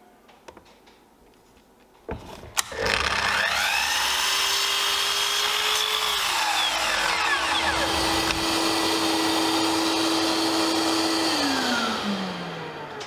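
Electric mitre saw switched on with a click about two seconds in, its motor whining up to speed and running steadily while the blade cuts through a small wooden block. The pitch dips slightly as the blade bites, and the saw winds down with a falling whine near the end.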